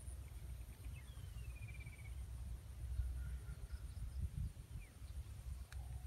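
Outdoor background with a steady low rumble, and a single falling bird-like whistle about a second in.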